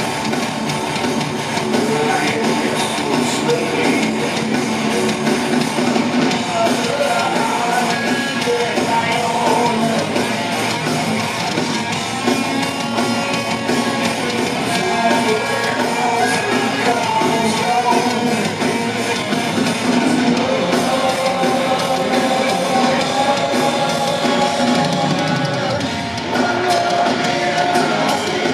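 Thrash metal band playing live: distorted electric guitars over bass and drums, loud and continuous.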